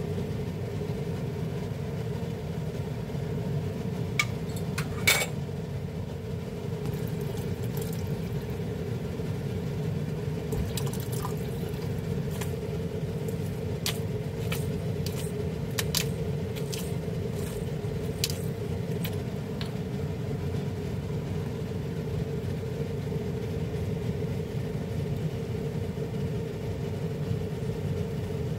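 A steady low hum runs underneath. A couple of sharp knocks come about four to five seconds in. A run of short clicks follows from about twelve to nineteen seconds in, from a hand pepper grinder being twisted over the soup pot.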